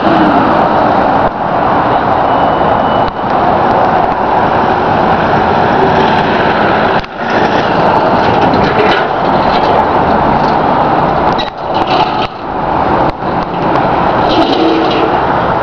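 Fire trucks driving past and pulling away, a loud steady engine and road noise with brief dips.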